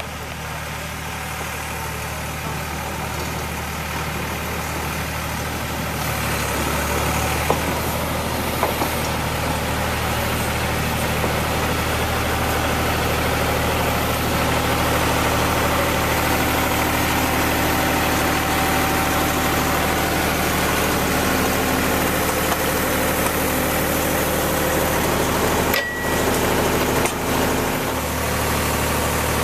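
Tie inserter's engine running steadily, growing louder over the first ten seconds or so as the rail machine travels up the track toward the microphone, then holding close by.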